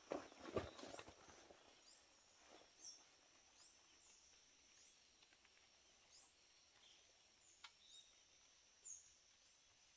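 A few brief rustling and handling noises in the first second, then quiet forest ambience. A steady high insect hum runs under short high chirps, about one every second.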